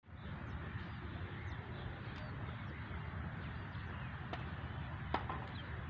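Outdoor ambience: a steady low rumble and hiss, with small birds chirping now and then. Two sharp clicks come about four and five seconds in.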